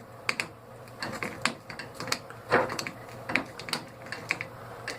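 Pliers clicking and tapping on a loosened metal nut at the end of an air compressor's motor, in a quick, irregular run of sharp metallic clicks.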